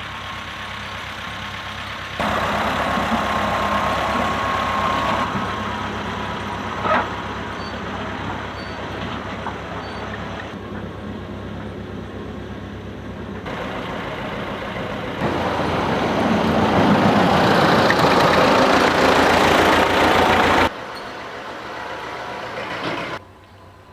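Farm tractor engine running under load in the hay field, heard in several short clips joined by sudden jumps in level, with a single sharp clack about seven seconds in.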